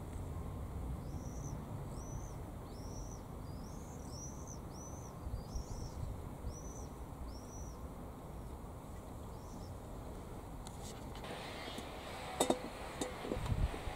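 A small songbird calling: about ten short, high chirps in a row, a little over one a second, over a low steady rumble. Near the end come a few sharp clicks and knocks.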